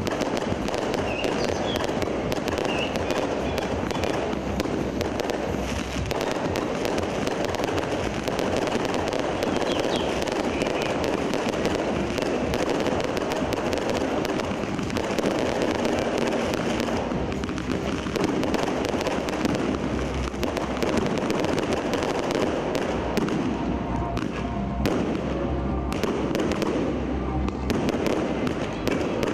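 A fireworks display going off without pause: dense crackling and popping over a steady low rumble of bursts.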